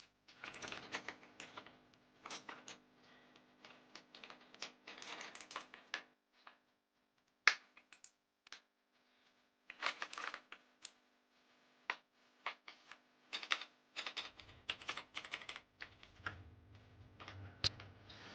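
Irregular clicks, taps and rustling in clusters as a Tsunami MK68 mechanical keyboard and its packaging are handled, with a faint low hum joining in the last few seconds.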